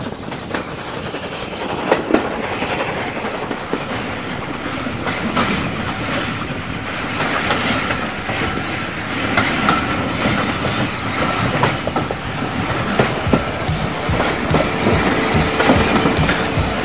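Steam-hauled train running, heard from a carriage window: wheels clicking over the rail joints against steady rushing noise. The clicking grows louder and more regular in the last few seconds.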